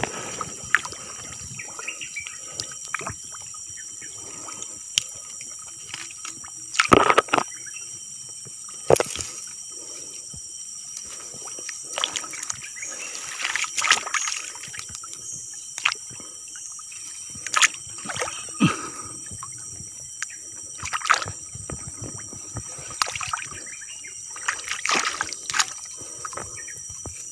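Shallow swamp water sloshing and splashing in irregular bursts as it is stirred by hand, over a steady high-pitched insect drone.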